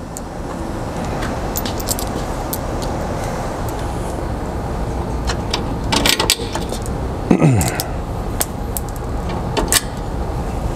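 Small metal clicks and clinks of flange bolts and hardware being handled and fitted into a UTV door's window track, over a steady rustling noise. A brief falling squeak about seven seconds in.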